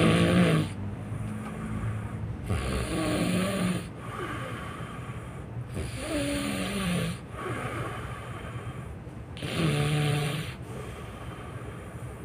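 A person snoring loudly while asleep: four pitched snores, each about three seconds after the last, with hissing breaths between them.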